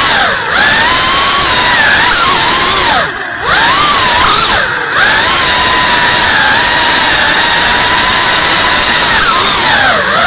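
Tiny whoop FPV drone's motors and propellers whining at a high pitch, the pitch and loudness dipping and climbing back as the throttle is cut and reapplied, a few times, deepest about three seconds in.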